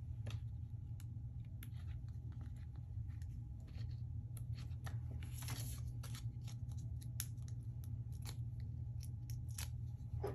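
Foam adhesive squares being peeled off their paper backing and handled, used to raise an embellishment off the page: scattered small crackles, clicks and paper rustles, with a longer rustle about halfway through, over a steady low hum.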